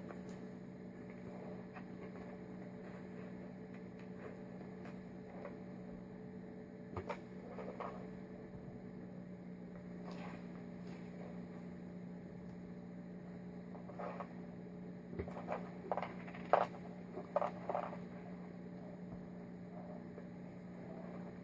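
Steady low electrical hum with scattered light clicks and taps, clustered in the second half, from small carburettor parts such as brass jets being handled on a bench.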